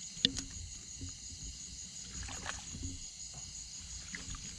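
A sharp click about a quarter second in, then low rumbling noise with faint splashy sounds, over a steady high trill of crickets.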